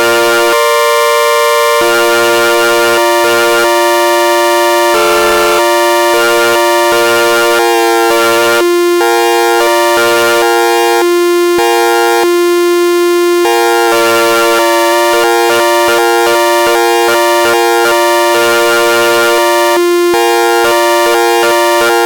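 Synthesized electronic tones at a constant loudness. One low note is held throughout while chord notes above it switch on and off every second or so. There is no wind-up or wind-down in pitch.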